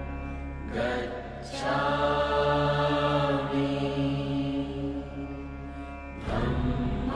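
Background music of slow, sustained chanting over a steady low drone. New phrases start about a second in and again near the end.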